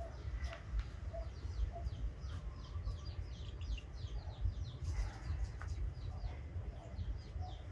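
Birds calling: short low clucking notes now and then, and a run of quick, high, falling chirps in the middle, over a steady low rumble.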